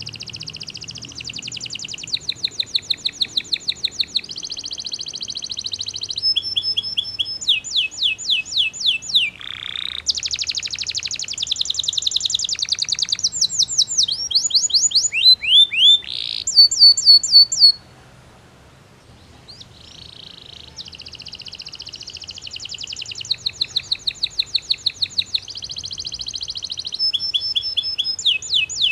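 Belgian canary singing a long song made of fast trills, each a quick run of repeated notes, some sliding and some high and whistled. The song breaks off past the middle for about two seconds, then starts again.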